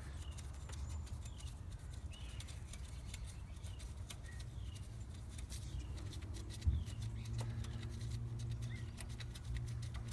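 Quiet handling sounds of the 10 mm nuts on a high-pressure fuel pump being unscrewed by hand: faint scattered clicks and one knock about two-thirds of the way through, over a low steady rumble. Faint bird chirps sound now and then.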